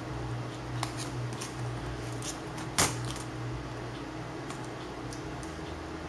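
Light plastic clicks and taps as a Toshiba Satellite L635 laptop keyboard is set into its frame and pressed down into place: a handful of short clicks, the sharpest one about three seconds in, over a low steady hum.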